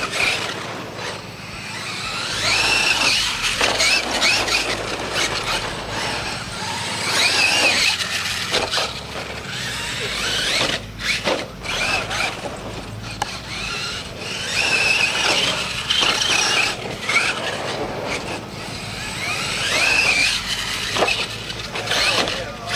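RC monster truck's electric motor whining, rising and falling in pitch in repeated bursts as the throttle is worked, with scattered knocks from landings and impacts.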